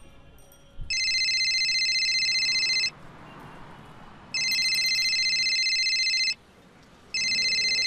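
Telephone ringing with an electronic trilling ring: two rings of about two seconds each, then a third that stops short near the end as the call is answered.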